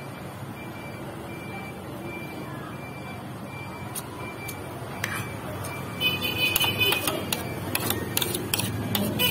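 Metal spoon and fork clinking and scraping on a plate, loudest from about six seconds in. Under it a steady low hum and a short electronic beep repeating about twice a second, which stops about five seconds in.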